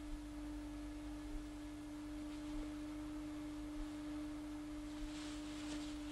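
A steady single-pitch tone, held unchanged, over a faint low hum and hiss, in the soundtrack of an old film clip.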